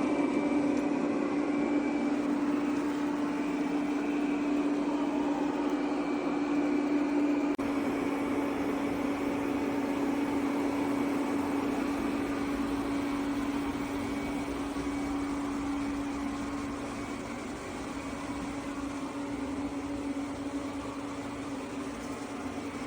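Robot vacuum with a mop module running: a steady motor and suction-fan hum with a constant low tone.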